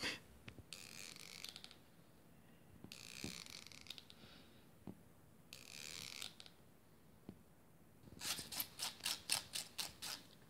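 Pet brush raking through a cat's fur in scratchy strokes: three slow single strokes, then a quick run of about eight short strokes near the end.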